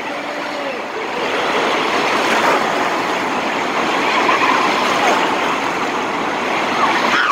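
Wave-pool surf churning and rushing around the child in the water, a steady loud wash of foam and breaking water, with faint children's voices in the din.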